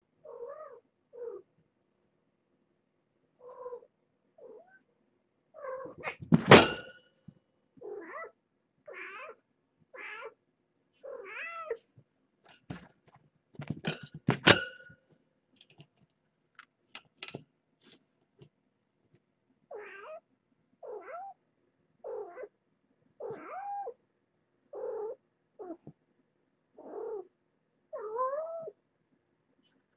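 Cats meowing over and over, short pitched calls about once a second. Two loud crashes, about six and fourteen seconds in, are the mother cat slamming into the wire pen fence during a burst of frantic running.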